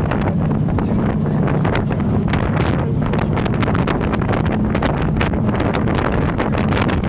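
Strong wind buffeting the microphone aboard a moving jet boat, over a steady low engine drone.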